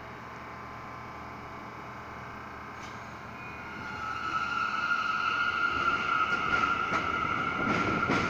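New York City Subway train pulling out of the station: a low steady hum, then about four seconds in a steady high propulsion whine swells as the train accelerates away, with several wheel clacks over the rail joints near the end.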